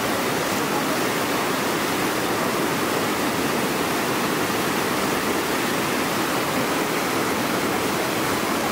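Whitewater rapids rushing steadily: an even, continuous noise of fast river water tumbling over rocks.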